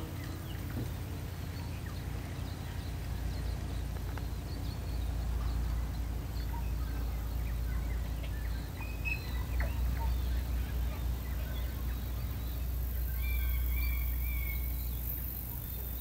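Outdoor ambience: a low, uneven rumble of wind on the microphone, with birds chirping and calling now and then, most busily near the end.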